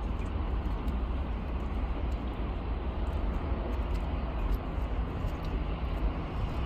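Steady low rumble and hiss of outdoor noise, with wind buffeting the microphone.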